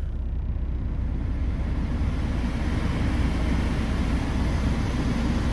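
Ford Kuga 2.0 TDCi four-cylinder diesel idling just after a cold start, heard from inside the cabin, under the heater blower running at full heat; the blower's air noise builds over the first couple of seconds, then holds steady.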